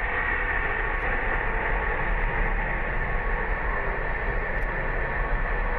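Four turbofan engines of a C-5 Galaxy transport at takeoff power: a steady jet roar with a high, held whine on top.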